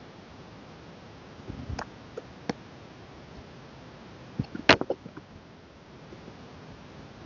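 Album packaging and inclusions being handled by hand: a few light taps and clicks, then a quick cluster of sharper clicks and knocks about four and a half seconds in, the loudest of them.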